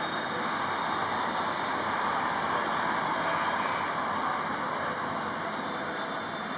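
Steady road traffic noise, an even wash of sound with no distinct bird calls standing out.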